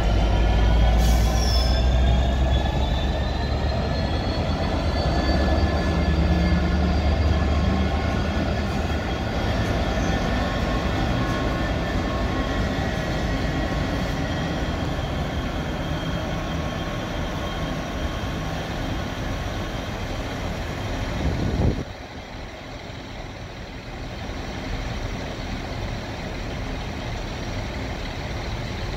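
Class 66 diesel locomotives, two-stroke EMD V12 engines, running past with a heavy low rumble, their engine note rising in pitch over the first few seconds as they power up, then slowly fading. About 22 seconds in the sound drops abruptly to a quieter steady rumble.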